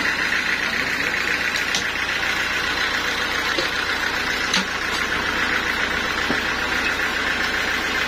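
Band sawmill running steadily with its blade not in a cut, with a couple of light metal knocks from the log carriage and clamps.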